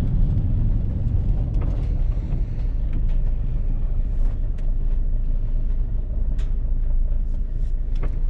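Steady low rumble of a van running, with a few faint clicks and rattles.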